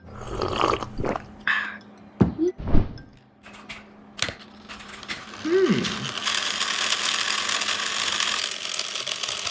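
Clicks and knocks of a small toy car's mechanism. About six seconds in, a steady whir starts and keeps going.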